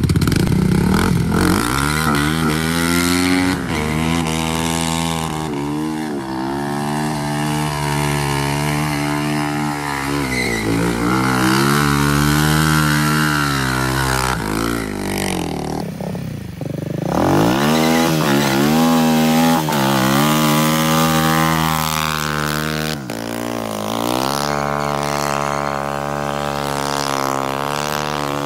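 Honda Grom's swapped-in CBR250R single-cylinder engine revving hard and repeatedly, its pitch rising and falling as the rider works the throttle through stunts and drifts. It drops off and climbs again about halfway through and once more near the end.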